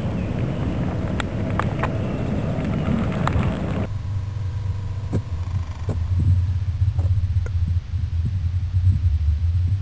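A steady open-air rushing noise with a few sharp clicks, which cuts abruptly about four seconds in to a steady, muffled low rumble with scattered knocks: the sound a camera picks up under water.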